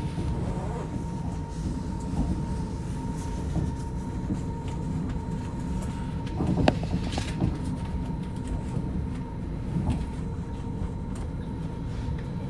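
Mountain railway train running: a steady low rumble with a constant thin whine and a few sharp clacks, the loudest a little past halfway.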